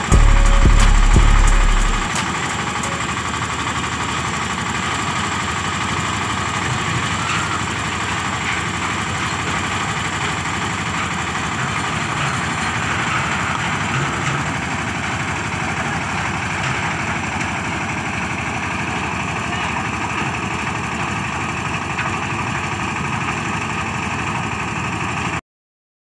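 Engine of a tower lift-mixer running steadily while the lift hoists its bucket up the tower. A loud low rumble in the first two seconds. The sound cuts off abruptly near the end.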